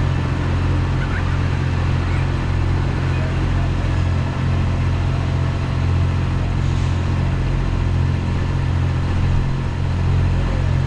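Large farm tractor's diesel engine idling steadily, a constant low hum with no revving.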